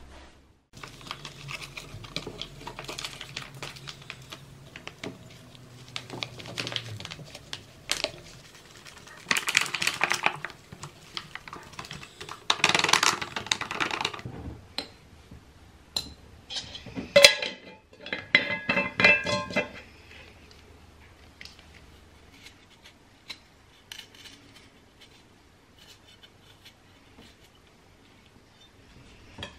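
Kitchen counter handling sounds: a foil bag rustling as brown granules are poured from it into a glass jar, then a run of ringing clinks of glass and cutlery about two-thirds of the way in, followed by quieter handling.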